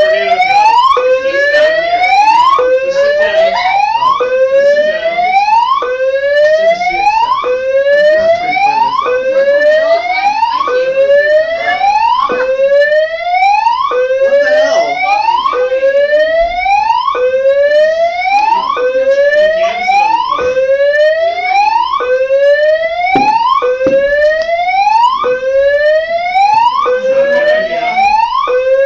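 School tornado-drill alarm sounding loudly in a repeating whoop tone. Each sweep rises for about one and a half seconds, then drops back and starts again.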